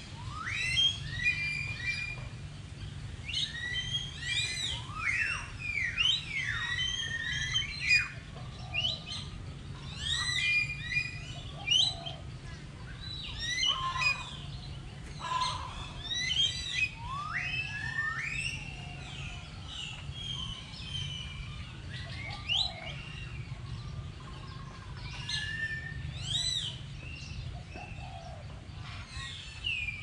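Several birds chirping and whistling, many short rising and falling calls overlapping, over a steady low hum.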